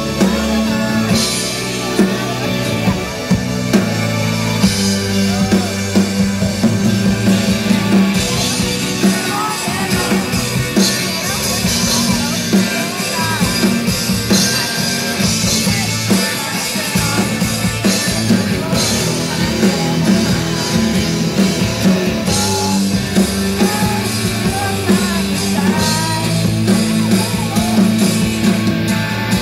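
A live rock band playing a song through a PA, with drum kit and guitars, and voices singing along.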